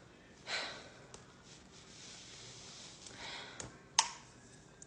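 Plastic clicks and rubbing from a Talenti ice cream jar's plastic screw lid being worked at by hand, with two short rushing sounds and a sharp click about four seconds in, the loudest sound.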